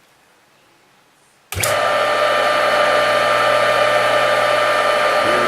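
Sears Craftsman flex drive table saw motor (model 62855) switched on about a second and a half in, coming straight up to speed and then running steadily with an even hum and whine. The motor runs extremely smooth.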